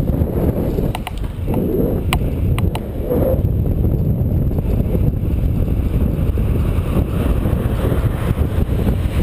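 Wind buffeting the microphone of a camera mounted on a moving bicycle, mixed with the noise of road traffic passing alongside. A few sharp clicks come about two to three seconds in.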